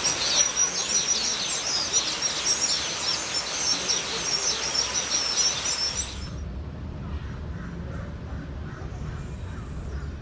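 A flock of birds chirping rapidly and continuously, many quick high calls overlapping. About six seconds in it cuts off abruptly, leaving a low rumble with faint chirps.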